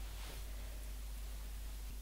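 Quiet room tone with a low steady hum, and a faint brief rustle of clothing near the start.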